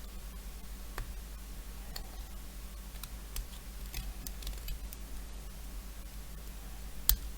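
Scattered light clicks of a small cutting tool and small model-kit parts being cut and handled, roughly one a second, with one sharper click near the end.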